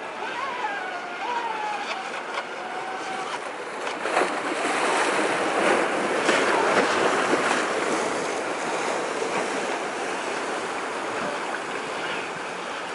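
Ocean surf washing steadily, swelling louder about four seconds in, with a faint high motor whine from a radio-controlled boat that rises and falls in pitch and fades out after about three seconds.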